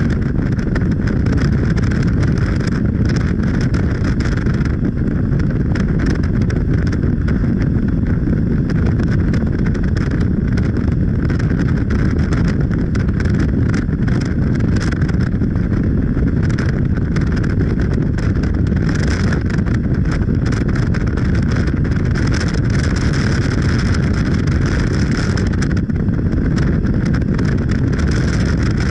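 Steady rumble of a moving vehicle, with wind buffeting on the microphone.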